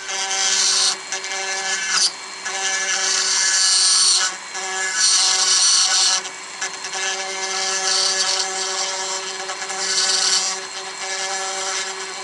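Foredom flexible-shaft rotary tool with an H.28 handpiece running steadily, its bur grinding into the workpiece in repeated bursts of about a second each, with short let-ups between them.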